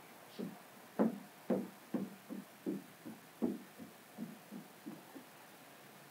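Hand squeegee strokes pressing wet paint protection film onto a car hood: a run of short, dull thumps, about two or three a second and unevenly spaced, that stop about a second before the end.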